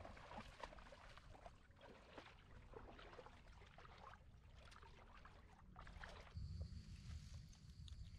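Faint, irregular splashing of feet running and wading through shallow sea water. About six seconds in it gives way to a low rumble with a steady high tone.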